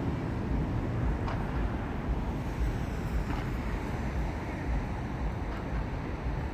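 Fireworks display heard from a distance: a steady low rumble with a few faint pops about two seconds apart.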